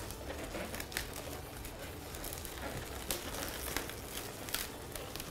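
Latex modelling balloons being handled and rubbed together, a crinkly rustle with a few scattered sharp clicks.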